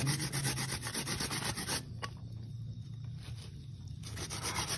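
Young coconut flesh rubbed up and down a handheld metal grater, a quick, even run of rasping strokes.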